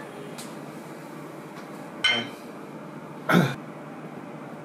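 Two short clinks of glassware and tableware on a table, about two seconds in and again a second later, over faint steady background noise.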